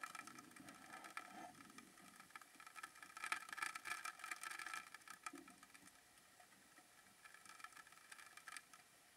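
Faint underwater noise picked up by a camera in its housing: scattered crackling clicks over a few faint steady tones, busiest a few seconds in.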